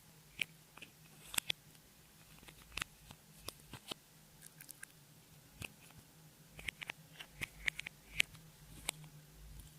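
Clear slime being worked by hand, giving irregular crisp clicks and pops that come in small clusters.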